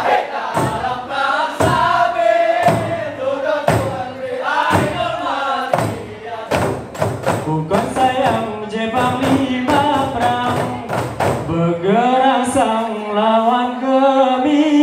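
Rapa'i Geleng: male voices singing in unison over strikes on rapa'i frame drums. The drum strikes come about once a second at first and grow much faster and denser about halfway through.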